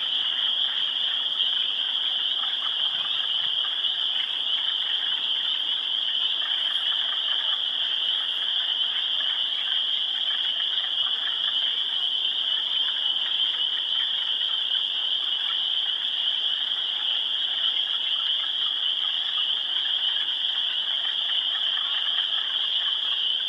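A dense spring chorus of many frogs calling at once: a steady, high-pitched ringing with lower calls mixed in beneath it.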